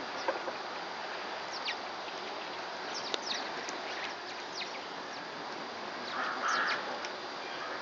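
Outdoor ambience of steady background noise, with short, high, falling bird chirps several times and a brief, lower bird call about six seconds in.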